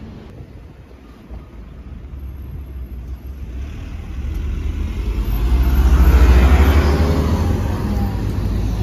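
A road vehicle passing close by on the street, growing louder over a few seconds to its loudest about six seconds in, then easing off, over a steady low rumble.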